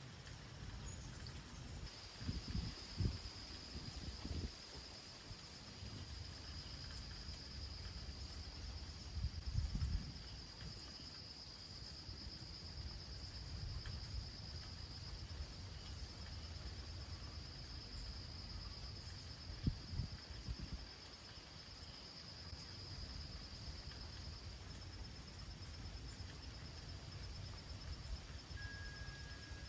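An insect trilling steadily at a high pitch, starting about two seconds in and going fainter a few seconds before the end, over a low outdoor rumble with a few dull thumps.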